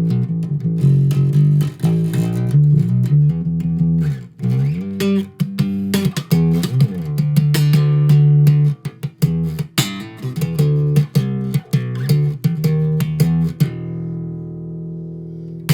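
Instrumental music led by guitar over a bass line, with some notes sliding in pitch; near the end a held chord rings out and fades before the playing resumes.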